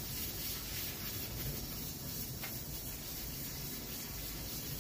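Steady hiss of steam escaping from an aluminium pressure cooker's vent after the flame is turned off, as the pressure falls on its own before the cooker can safely be opened.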